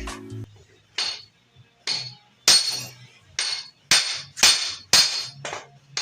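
About nine sharp, ringing hammer blows on metal, two spaced ones and then a quicker run of strikes about every half second, knocking at a stuck part on a dirt bike to get it to move.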